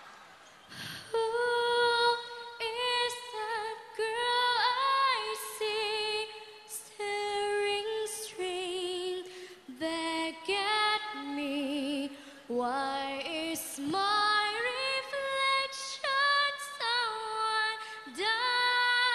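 A young woman singing solo and unaccompanied into a handheld microphone. She starts about a second in, holding long notes with vibrato and breathing between phrases.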